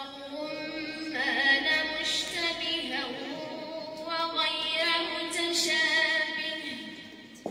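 A young woman reciting the Quran in the melodic tajweed style, her voice holding long, ornamented notes. There are two phrases, with a short breath between them, and the second trails off near the end.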